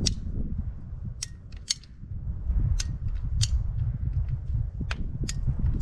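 Hand PVC pipe cutter being squeezed on an old PVC water pipe, its jaws and ratchet giving a run of sharp, irregular clicks, over a steady low rumble; the old pipe resists the cut and tends to break rather than cut cleanly.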